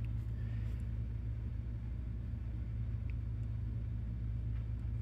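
Steady low hum, with a faint tick about three seconds in.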